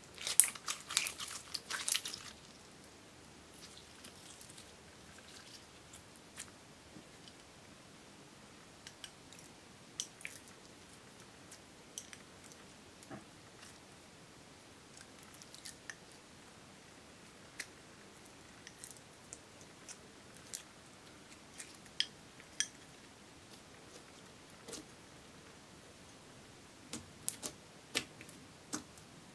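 Clear slime being squeezed and pressed by hand, with a burst of sticky crackles and pops in the first two seconds, then sparse single clicks and pops as the slime is kneaded and mixed with crushed silver makeup.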